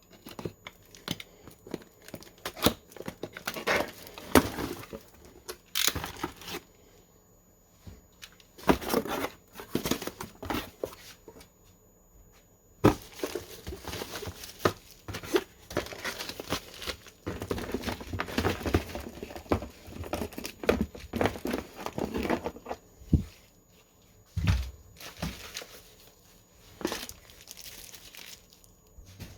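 Packaging crinkling and tearing, broken by many sharp clicks and knocks, in irregular bursts with short pauses.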